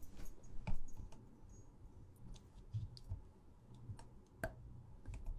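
Scattered soft clicks and taps, a few separate ones spread over several seconds, from small objects handled close to the microphone.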